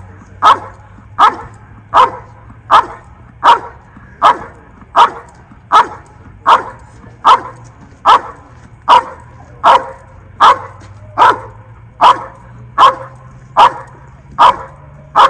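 Belgian Malinois barking steadily and rhythmically, a sharp bark about every three-quarters of a second, as it holds a hidden decoy at a blind: the bark and hold of Schutzhund protection work.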